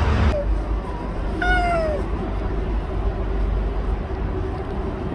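A cat meows once, about a second and a half in: a single call that falls in pitch.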